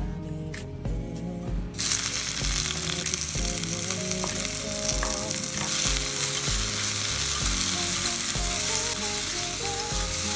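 Shallot and tomato pieces sizzling in hot oil in an earthenware pot. The sizzle starts suddenly about two seconds in, and wooden chopsticks stir the pieces. Soft background music with a steady beat plays underneath.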